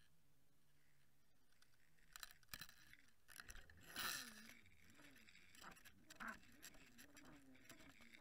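Faint underwater clicks, knocks and scraping heard through a camera housing on a fishing line as a halibut takes the lure, with a short louder rush of water about four seconds in.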